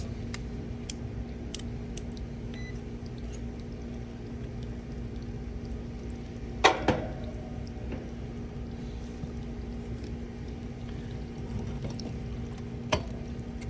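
Steady electrical hum with a few sharp clicks and one louder metallic clack about two-thirds of the way through: work at an HVAC condensing unit's capacitor, pulling the wires off the capacitor terminals.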